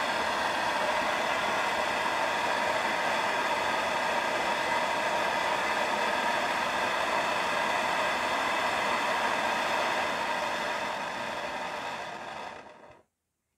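Butane torch flame hissing steadily. Near the end it fades and cuts off as the torch valve is turned off.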